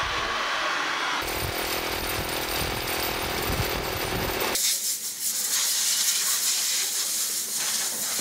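A hot-air gun blowing on a racing tyre for tyre scraping, then about a second in a high-pressure piston air compressor running with a steady hum and fast low pulsing, then from about four and a half seconds a compressed-air hose hissing.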